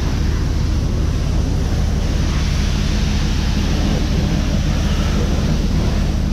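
Self-serve car-wash pressure wand spraying water onto a car's front end: a steady hissing rush of spray, with a constant low drone underneath.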